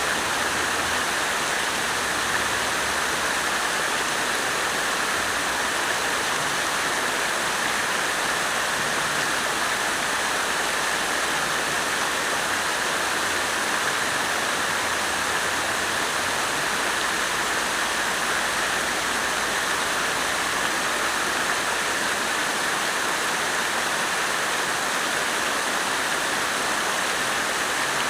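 Water fountain running: falling water splashing in a steady, even rush.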